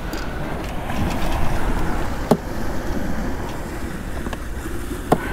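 Wind buffeting the microphone as a steady low rumble, with two sharp clicks, one a little over two seconds in and one near the end.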